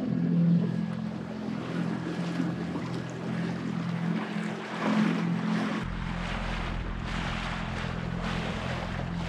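Outboard motor on an inflatable dinghy running under way, a steady drone over the rush of water and wind; a deeper low rumble joins about six seconds in.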